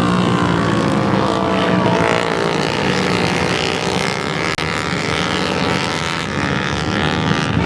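Several flat-track racing motorcycles running hard around a dirt oval, their engine notes overlapping and rising and falling as they go through the turns and down the straight. The sound drops out for an instant about halfway through.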